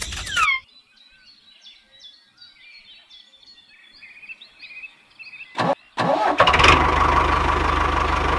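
A running engine cuts off abruptly, leaving faint bird chirps for about five seconds; then, after a sharp crack, an engine starts and runs steadily with a fast, even chug.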